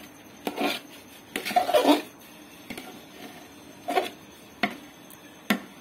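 Metal ladle scraping and knocking against the sides of a large aluminium pot while stirring thick chana dal halwa as it roasts. It comes as a handful of separate strokes, the loudest about one and a half seconds in.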